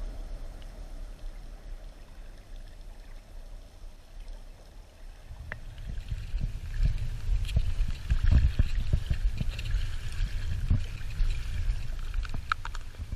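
Muffled underwater rumble from a camera held in shallow river water. About halfway the camera comes out of the water, and there are irregular handling knocks and trickling water on the housing. A few sharp clicks near the end come from a plastic clip-lid food container being handled.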